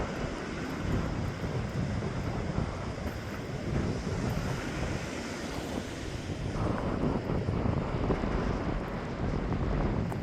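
Strong gusty wind buffeting the microphone: a low rumble under a steady rush, with small swells as gusts come through. These are gust-front winds behind a decaying rain shower.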